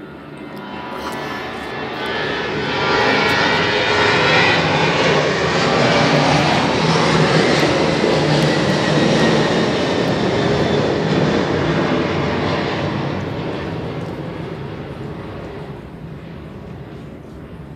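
A loud passing engine noise that swells over about three seconds, holds, then slowly fades away.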